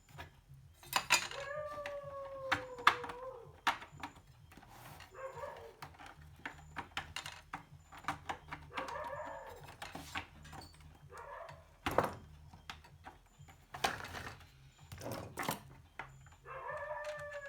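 Drawn-out animal cries, twice, each sliding slightly down in pitch, with a few shorter cries between, among scattered sharp clicks and knocks.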